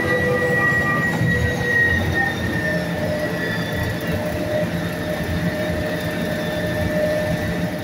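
A New Holland self-propelled forage harvester running steadily at work, with a low engine drone and high whining tones from the chopping and blowing gear that shift slightly in pitch.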